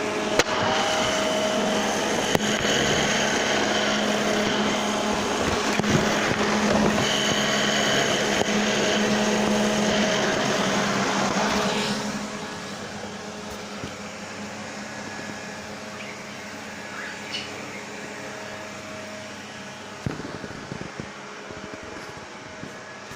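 Vacuum cleaner running with a steady whooshing hum, dropping to a much quieter level about halfway through.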